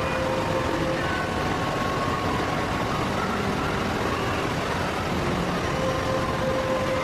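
Steady rushing of the Rain Vortex, a tall indoor waterfall pouring from a glass dome into a pool below, with a few faint held tones over it that come and go.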